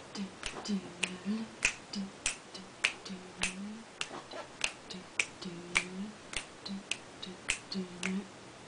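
Fingers snapping in a steady beat, about two snaps a second, with short low hummed notes in between; both stop shortly before the end.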